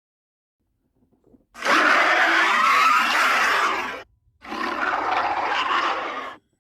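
Indoraptor dinosaur sound effect: two long, harsh roars, the first starting about a second and a half in and the second after a brief pause.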